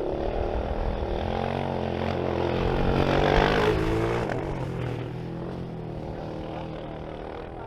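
Off-road vehicle engine running under throttle, building to its loudest about three seconds in and then easing off.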